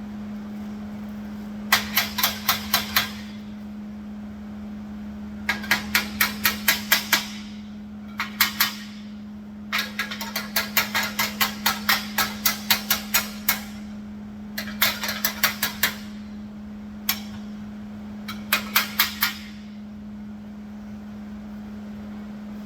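Small hammer tapping on steel in quick bursts of light blows, about five a second, from a single tap to a run of about twenty, nudging a steel bracket into line before it is tack-welded.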